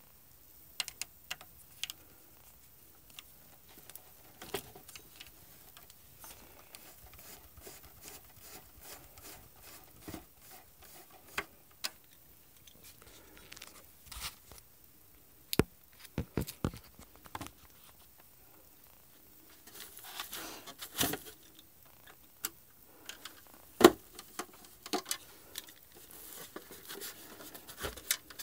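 Scattered clicks, taps and knocks of the hard plastic Xbox Series X casing and parts being handled during disassembly. There are a few louder knocks about halfway through and again later, and a brief rustling scrape around twenty seconds in.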